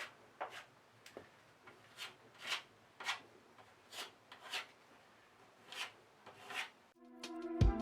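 Fairing compound being worked onto a damaged surface with a spreader blade: a series of short scraping strokes, roughly one every half second to a second. Music comes in at the very end.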